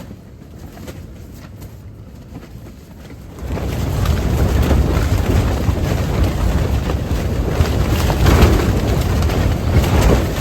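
Strong wind gusting and buffeting the microphone: a faint rush that jumps suddenly to a loud, heavy rumble a little over three seconds in and stays loud.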